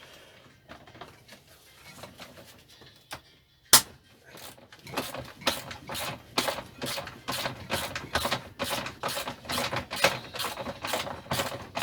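A ratchet spanner clicking in quick strokes, about three clicks a second, working a bolt on a small engine, with one sharp metal knock about four seconds in.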